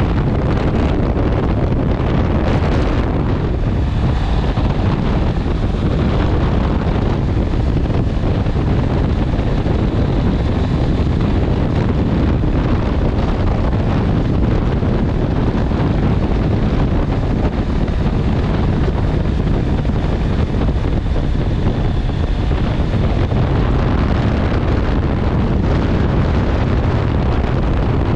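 Heavy wind buffeting the microphone at riding speed, over a Honda CB650R's inline-four engine running steadily.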